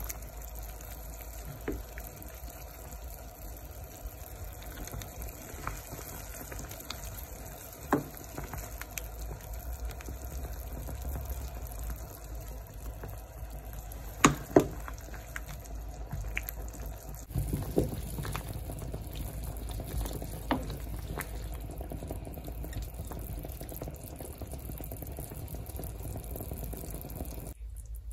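Pot of chicken and vegetable soup bubbling steadily on the stove, with a few sharp clicks, the loudest a pair about halfway through.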